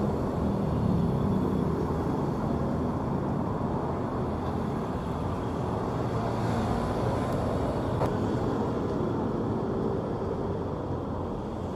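Road traffic: a steady wash of car and motorcycle engines and tyres passing on a busy city street, loudest at the start as a vehicle goes by.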